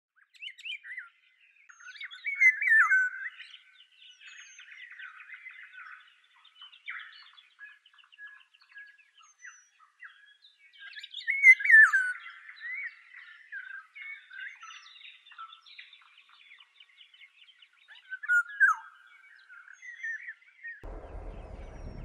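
Songbirds singing and chirping: three louder warbled phrases spaced several seconds apart, with softer twittering between them. Near the end a low, even noise comes in under the birds.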